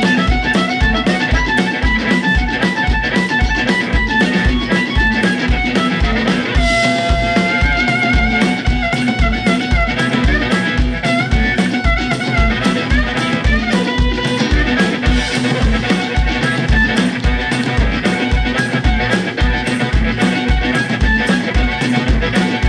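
Live blues-rock band in an instrumental passage: an amplified harmonica, cupped to a handheld microphone, plays wailing, bending notes over electric guitar and a drum kit with a steady kick-drum beat.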